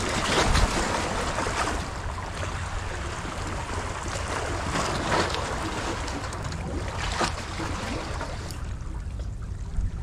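Wind buffeting the microphone over sea washing against the rocks, with a few stronger gusts or surges about five and seven seconds in.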